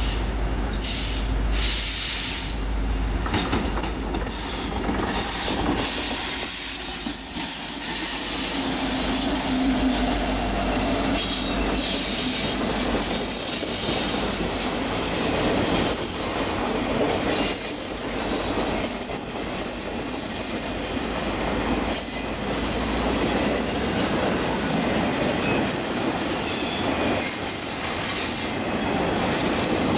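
A Norfolk Southern freight train rolling past with its diesel locomotives and a string of empty flatcars, the wheels clattering on the rails. A thin, high-pitched wheel squeal joins in during the second half.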